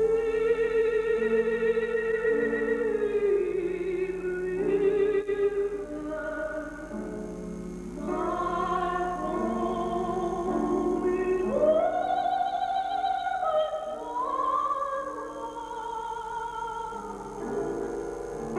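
A slow spiritual sung by a classical solo voice in long, held notes with wide vibrato, gliding from note to note over lower sustained accompaniment. The sound is dull, with little treble, as from an old VHS tape transfer.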